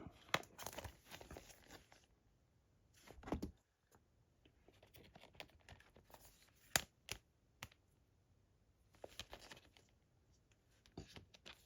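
Faint handling sounds of a plastic Blu-ray case and its discs: scattered sharp plastic clicks and short rustles, with one louder rustle about three seconds in and a sharp click a little before the middle.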